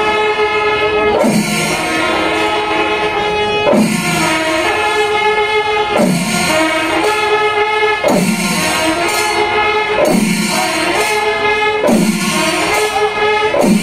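Kerala temple melam ensemble playing: chenda drums and elathalam hand cymbals under sustained wind tones, with a sharp accent and a falling low note repeating about every two seconds.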